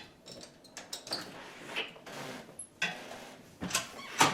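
A few irregular clicks and knocks of handling, the loudest one near the end.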